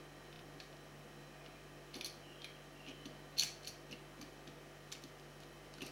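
Faint scattered clicks and taps of small metal screws and parts being handled and fitted with a screwdriver, the sharpest about three and a half seconds in.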